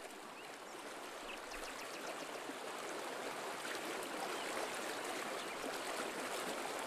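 Steady rush of flowing water, an even hiss that grows slowly louder.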